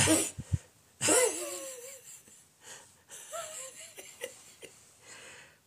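A man laughing: breathy, wheezing laughter in several short bouts.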